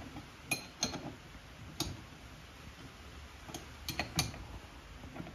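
A steel 22 mm (7/8 in) wrench clinking against hydraulic hose fittings as they are snugged up: about half a dozen light metal clicks spaced irregularly.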